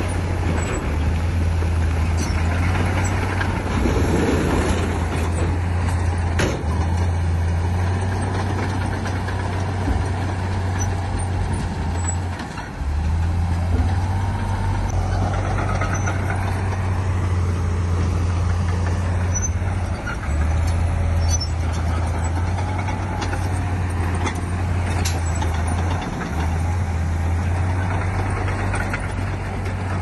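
Heavy diesel earthmoving machinery running: a steady deep engine drone that drops out briefly a few times, with occasional sharp clicks.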